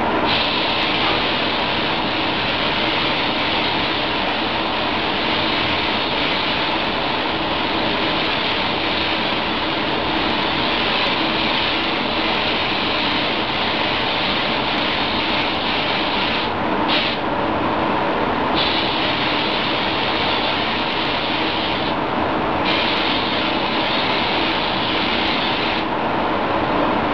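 SATAjet 4000 spray gun hissing as compressed air atomises the paint, in long passes that break off briefly twice and stop near the end. Under it runs the steady rush of the spray booth's ventilation.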